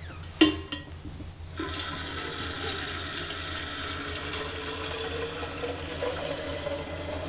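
Water running from a kitchen faucet into a plastic watering can, a steady splashing whose pitch slowly rises as the can fills. A single sharp knock comes about half a second in, and the water starts about a second later.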